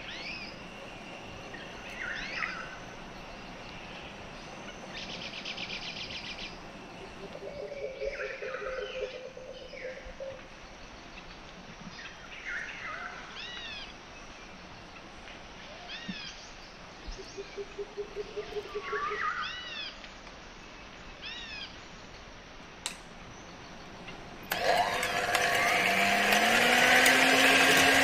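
Birds chirping intermittently in the background; about three quarters of the way in an electric hand mixer switches on suddenly, its motor whine rising and then running steadily at medium speed as its beaters whip egg whites in a bowl.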